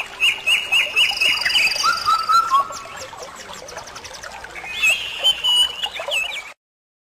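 Several wild birds singing and calling at once: a quick series of repeated chirps, a thin high trill and lower whistled notes. The sound cuts off abruptly near the end.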